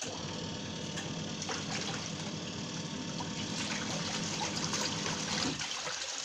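Bruhm twin tub washing machine's wash motor running, its pulsator churning the water in the tub to mix in the soap, a steady hum with sloshing water. It stops about five and a half seconds in.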